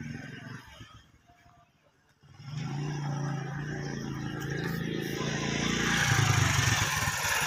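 A motor vehicle's engine running steadily, starting up about two seconds in and growing louder toward the end.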